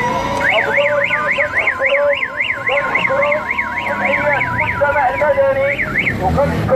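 An electronic siren warbling rapidly up and down, about three sweeps a second, stopping about six seconds in, over the voices of a crowd.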